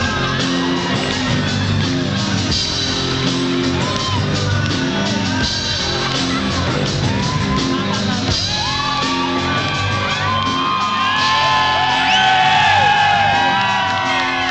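Live rock band playing loudly through a PA, a steady bass line repeating underneath, with a male singer's voice and shouts and whoops on top. In the last few seconds the voices slide up and hold long notes, the loudest part.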